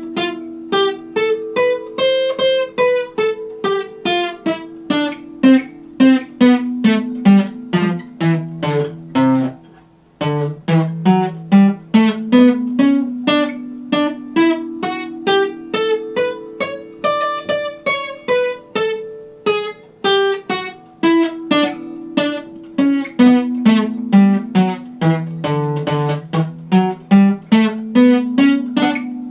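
Epiphone acoustic guitar played solo, a steady stream of picked single notes over held ringing strings, with a bass line stepping down in a phrase that repeats about every ten seconds. The playing breaks off briefly just before ten seconds in.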